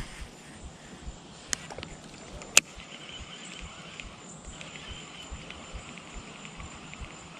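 Baitcasting reel being reeled in: a faint steady whir with many small ticks from about three seconds in, after two sharp clicks, the second the loudest. A steady high insect buzz runs underneath.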